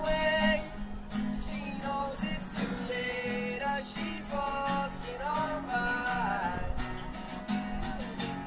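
Two acoustic guitars strummed together in a steady rhythm, with a melody line carried over the chords.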